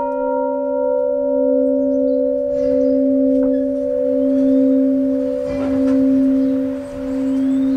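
Bronze clock-tower bell ringing on after a single strike. Its higher overtones die away in the first couple of seconds, while the low hum keeps sounding and slowly swells and fades in loudness.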